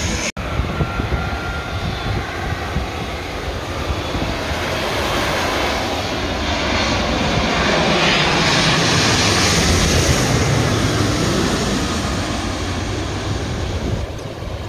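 Twin-engine jet airliner on low approach, its engine noise and rush swelling to a peak about two-thirds of the way through and then easing off. The sound cuts out briefly just after the start.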